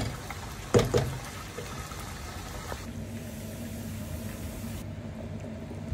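Aloo gosht curry simmering in a steel pot, a soft steady bubbling, with a wooden spoon knocking against the pot twice near the start. A faint steady hum comes in about three seconds in.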